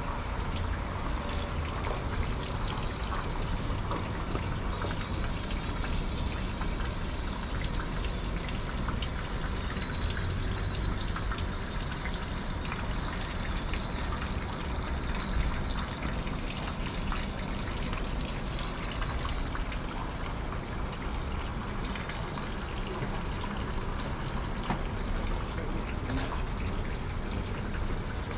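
Thin streams of water trickling and splashing steadily from holes in a bamboo pipe into a stone shrine purification basin (chōzubachi), over a low rumble.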